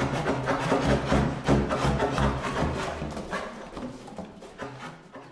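Saxophone quartet of soprano, alto, tenor and baritone saxophones playing together: short, sharply attacked notes over a low baritone pulse. The music fades out over the last two seconds.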